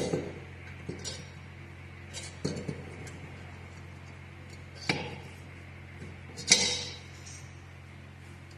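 Sharp metallic clinks and knocks of a VW Kombi air-cooled cylinder barrel being handled on a steel fixture, about five separate strikes spread out, the loudest about six and a half seconds in, over a steady low machine hum.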